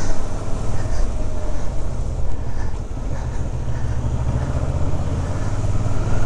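Suzuki V-Strom motorcycle engine running at low revs while riding slowly through town, with wind and road noise over it; the engine note picks up near the end.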